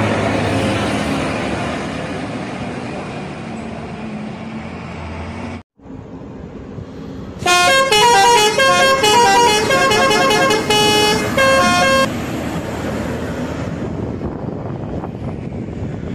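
Road and engine noise from a passing bus fades and drops out abruptly. Then a bus's telolet horn, a set of air horns playing a tune, sounds a loud, fast melody of stepping notes for about four seconds before road noise returns.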